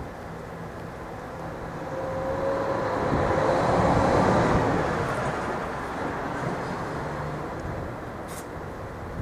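A vehicle passing by, its noise swelling to a peak about four seconds in and then fading away.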